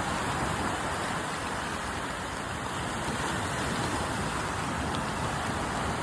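Rain falling together with small sea waves washing in, an even, steady hiss.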